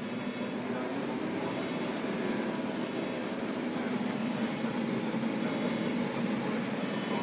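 SOR NB 12 city bus's diesel engine idling steadily while the bus stands still, a low hum heard from inside the passenger cabin, with a few faint clicks.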